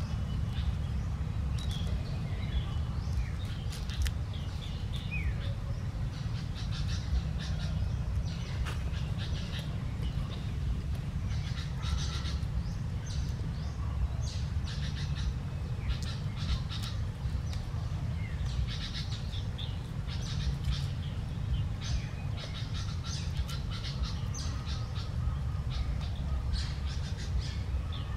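Birds chirping in short, scattered calls and little glides, over a steady low rumble, with occasional sharp clicks.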